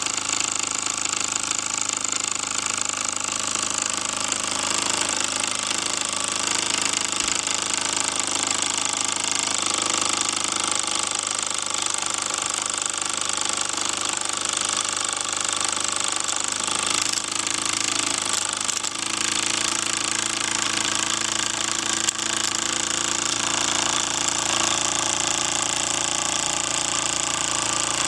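1946 Mamod SE1 toy steam engine running fast and steady, its single oscillating brass cylinder chuffing rapidly with a strong hiss of steam.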